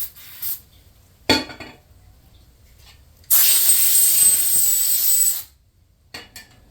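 Aerosol can of brake cleaner sprayed in one steady burst of about two seconds: a loud hiss with a thin whistle in it. A sharp click comes about a second earlier.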